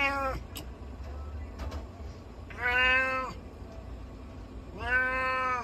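Black-and-white Japanese cat meowing three times, long even-pitched meows about two seconds apart: one right at the start, one in the middle and one near the end.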